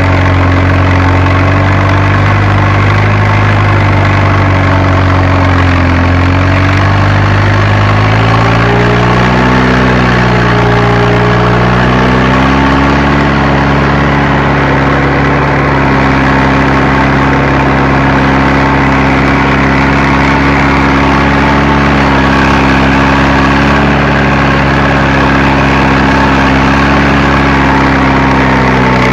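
Fiat Agri tractor's diesel engine running steadily while working a seedbed. Its pitch rises a little about ten seconds in, then holds steady.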